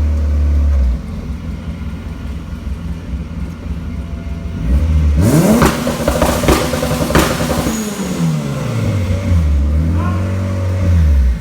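Car engine running with a low rumble, then revving hard: the pitch climbs about halfway through, holds high for about two seconds, and falls back off.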